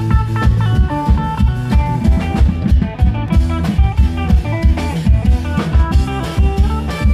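Klong yao band playing lively Isan procession music: a quick plucked-string melody over a steady beat of low drum strokes.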